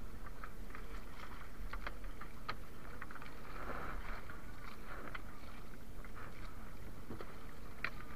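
Sea water washing and lapping around a small outrigger fishing boat, with scattered small splashes and clicks as a wet net is hauled in over the side by hand. A denser splash comes about three and a half seconds in.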